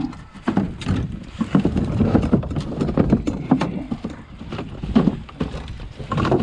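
Irregular knocks and clunks of gear being handled, close to the microphone, over a low rumble.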